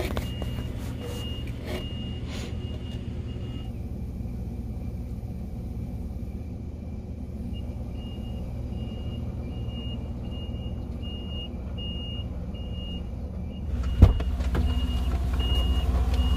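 Steady low engine rumble heard from inside a pickup truck's cab, with a thin high beep repeating about every two-thirds of a second. The beep drops out for a few seconds early on and then returns. About two seconds before the end there is a thump as the cab door opens, and the rumble gets louder.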